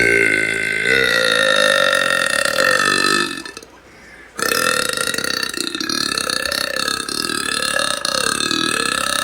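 A woman belching loudly twice: a long belch of about three seconds, then after a brief pause a second, longer one that wavers up and down in pitch.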